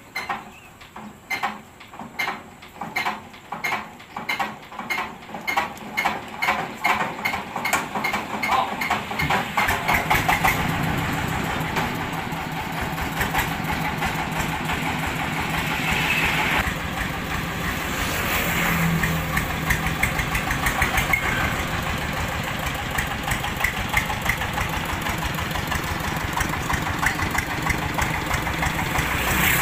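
Diesel engine of a homemade mobile rice-huller being hand-cranked: strokes that start slow and quicken over about ten seconds, then the engine catches and keeps running steadily.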